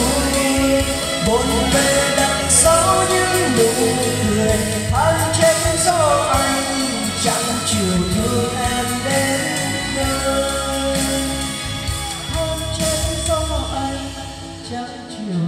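A song with singing and heavy bass playing over a large portable karaoke speaker cabinet with dual 40 cm bass drivers. It gets somewhat quieter near the end.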